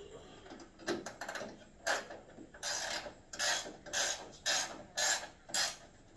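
Hand ratchet wrench clicking in repeated short strokes, about two a second, tightening the hood's hinge bolts.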